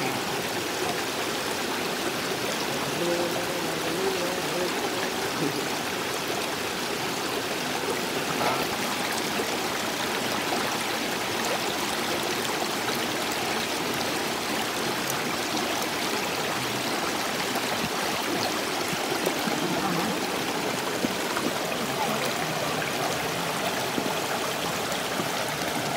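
Shallow rocky stream running steadily over stones.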